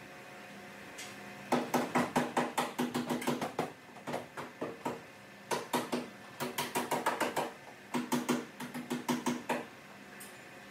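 Runs of rapid light taps or clicks, about six to eight a second, in four bursts of one to two seconds each, over a faint steady hum.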